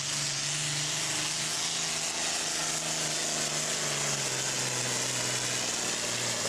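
John Deere 6030 super farm pulling tractor's diesel engine running wide open under the load of the pulling sled, a loud steady rush over a deep engine note that gradually drops in pitch partway through.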